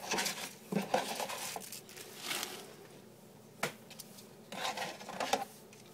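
Raw collard green leaves rustling and crinkling as they are pushed down into a metal pot, in several short bursts, with a single sharp click about three and a half seconds in.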